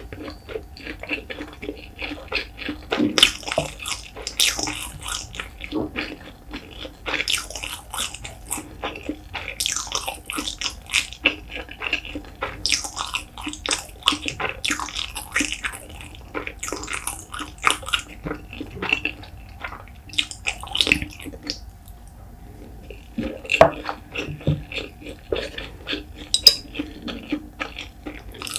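Close-miked wet chewing of a mouthful of steamed white rice, a steady stream of short smacking clicks and squelches. A few sharper clicks in the last few seconds come from chopsticks against the dish as a piece of salted pollock roe is picked up.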